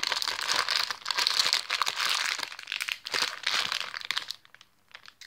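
Plastic packaging bag of an iBloom squishy crinkling as it is handled, a dense crackle of fine ticks that comes in two stretches and stops about four seconds in.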